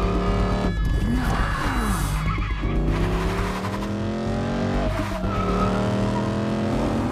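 Film car-chase sound mix: a car engine revving hard and climbing in pitch through the gears, dropping back at each shift, with tyre skids and a music score underneath.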